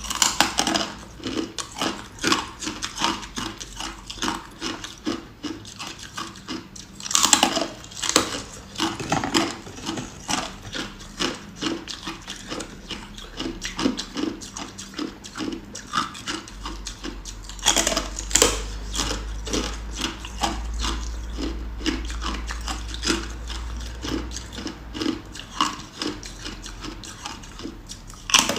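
Ice being bitten and chewed: sharp crunches followed by a steady run of crackling chews, a few a second, with louder bites at the start, about seven seconds in and about eighteen seconds in.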